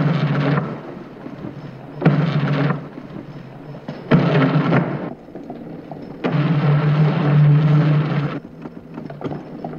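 Rough, rumbling noise in bursts: three short ones about two seconds apart, then a longer one lasting about two seconds.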